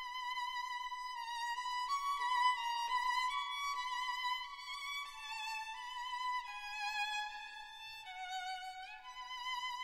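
Background music: a solo violin melody, the notes wavering with vibrato and one sliding up near the end.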